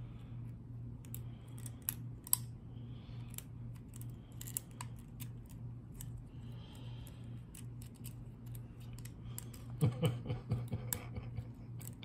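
Irregular small metallic clicks and scrapes of two pick wires working inside an old ACE lever padlock, trying to throw its stuck bolt, with a brief run of louder knocks and rattles about ten seconds in as the lock is handled.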